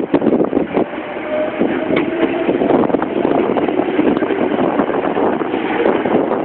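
A Meitetsu electric train passing over the level crossing: a loud, steady rumble of wheels on rail, with frequent sharp clacks through it.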